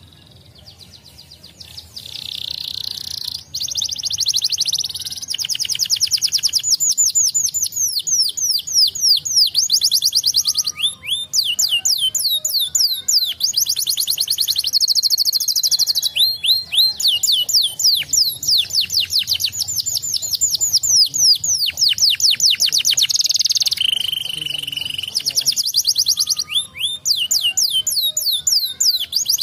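Domestic canary singing a long, fast song of rapid trills and quick downward-sweeping notes. It starts faint and grows loud after about two seconds, with a lower, steadier trill about four-fifths of the way through.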